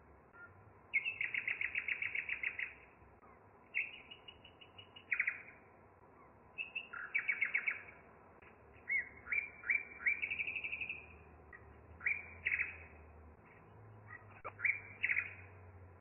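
A bird singing in a string of phrases. Each phrase is a rapid trill of repeated high chirping notes lasting a second or two, followed by a short pause.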